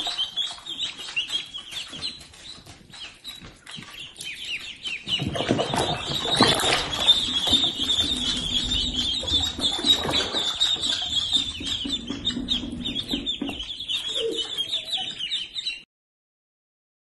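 A brood of ducklings peeping together, a dense chorus of many short high calls. A louder, rougher noise joins about five seconds in, and the sound cuts off abruptly shortly before the end.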